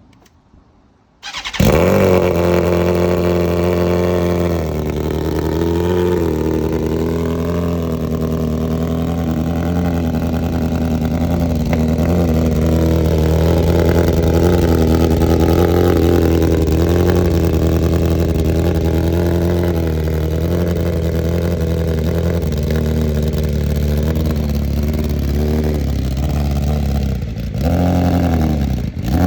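BMW M1000RR's inline-four with an Akrapovic exhaust starting up on a cold morning: it fires about a second in and settles into a steady idle, with a brief rev near the end.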